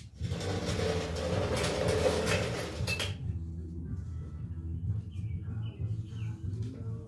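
The cut-off rear half of a golf cart's steel frame being dragged across a concrete floor, scraping for about three seconds. After it, birds chirp over a steady low hum.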